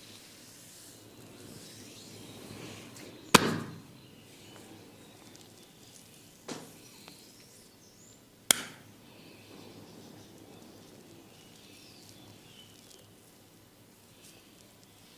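Barber's hands during a head massage: three sharp percussive hits, the loudest about three seconds in, a weaker one near six and a half seconds and a strong one near eight and a half, with faint rustling of hands on hair and skin between them.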